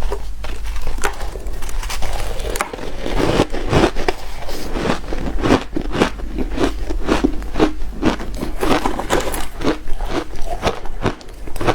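Hard shaved ice being bitten and chewed: a rapid, continuous run of sharp crunches and crackles.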